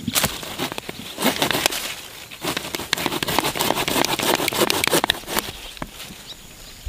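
Short-handled mattock chopping into dry soil and roots to dig out a small tree stump: repeated sharp strikes, with dense scraping and crackling of earth and roots through the middle.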